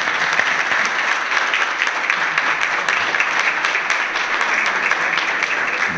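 Audience applauding: steady clapping from many people.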